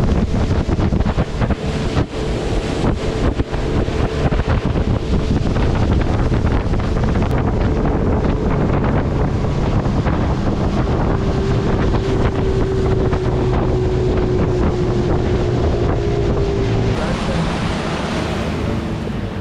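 Motorboat under way, its engine running steadily beneath heavy wind buffeting on the microphone and water rushing past the hull.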